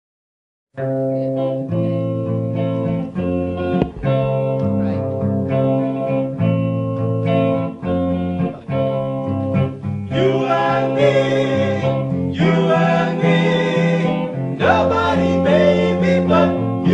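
Background music: a song led by a plucked guitar, with a singing voice coming in about ten seconds in.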